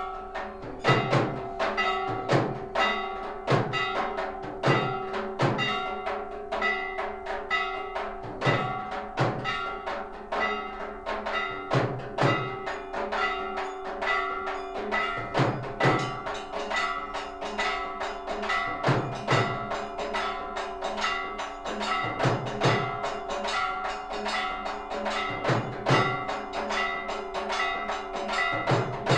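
Aarti temple percussion: metal bells ring on and on with fast, continuous strikes over a steady ringing tone, and a deep drum beats about once a second.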